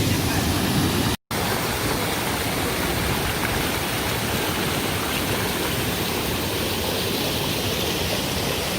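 Steady rush of a waterfall, with a brief cut to silence about a second in.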